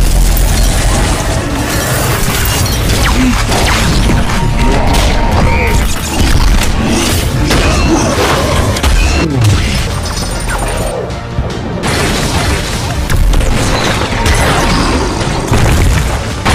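Action-film soundtrack: dramatic music under a run of booms, crashes and smashing impacts from a superhero fight, with energy-blast effects and bodies hitting the ground.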